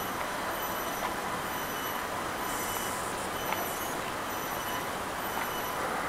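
Steady outdoor background: an even hiss with faint high-pitched steady tones, a brief extra shrill patch about halfway through, and a few soft ticks.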